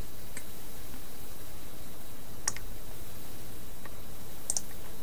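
About four sharp, isolated computer clicks, spaced a second or two apart, over a steady background hum and hiss.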